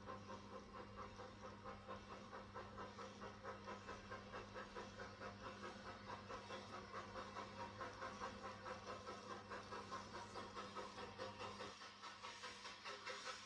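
Steam locomotive chuffing in a steady rhythm of about four to five beats a second, over a steady low hum that drops away near the end.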